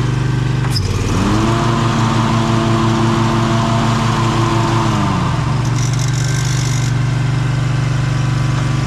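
Lawn mower engine running; after a click about a second in it revs up, holds a steady higher speed for about four seconds, then drops back to idle. A short hiss follows.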